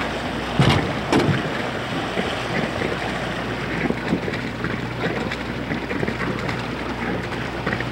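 Wind buffeting a camcorder microphone over open lake water, with swimmers splashing in the lake. Two sharp knocks about half a second and a second in are the loudest sounds, over a faint steady low hum.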